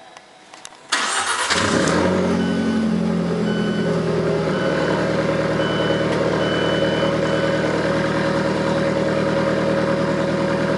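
Alfa Romeo 4C's 1.75-litre turbocharged four-cylinder engine starting: about a second in, the starter cranks and the engine catches, the revs flare briefly, then it settles into a steady idle. A faint high beep sounds on and off during the first few seconds of the idle.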